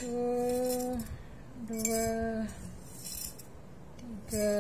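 A metal spoon clinking against a glass jar as rolled oats are scooped in. Between the clinks, a voice counts the spoonfuls aloud in three long, drawn-out words.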